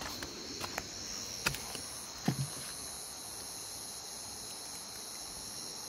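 Steady high chorus of crickets at night. A few sharp clicks come in the first second and a half, and a brief low sound about two seconds in.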